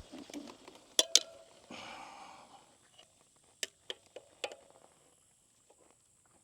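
Handling knocks as a motorcycle is tilted and a small jack is set under its swing arm: two sharp knocks about a second in, a short scrape, then three lighter knocks.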